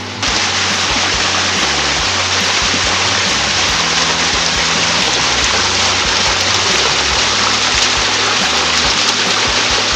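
Steady rush of flowing water that cuts in suddenly and cuts off suddenly about ten seconds later, heard over background music with low held notes.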